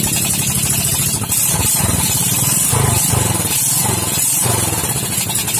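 Suzuki Smash's single-cylinder four-stroke engine idling steadily just after being started, running with its exhaust gasket missing.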